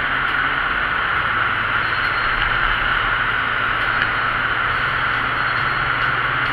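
Steady road noise of a moving vehicle, an even rushing sound with a low steady hum beneath it.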